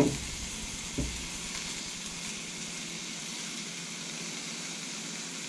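Chunks of deer meat sizzling in a hot skillet: a steady frying hiss, with a couple of short knocks at the start and about a second in.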